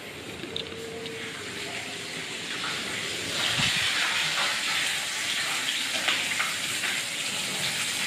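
Kitchen tap running into a sink, water splashing over a bunch of leafy greens being rinsed by hand; the steady rush of water grows louder about three and a half seconds in.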